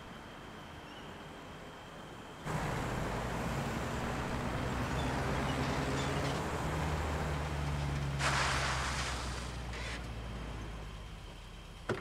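Vintage sedan's engine running steadily as the car drives up a dirt forest road, the sound starting suddenly a couple of seconds in. About eight seconds in there is a brief rushing hiss as the car pulls up, then the engine sound fades, and a sharp click comes near the end.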